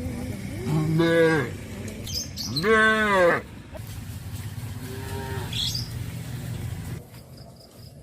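Cows mooing: three long calls, the second the loudest and the last fainter, each rising then falling in pitch.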